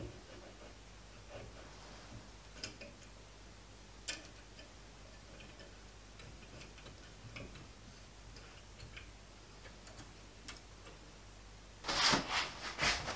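Light metallic clicks of a hex key and clamping bolts as a cylinder is adjusted on a lathe's backing plate, a few scattered ticks apart, then a rapid clatter of louder metal-on-metal knocks near the end as tooling is handled at the lathe's toolpost.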